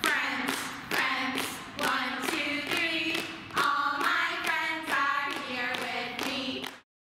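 Short upbeat intro jingle: a pitched melody over sharp clap-like hits on a steady beat of about two a second, cutting off abruptly just before the end.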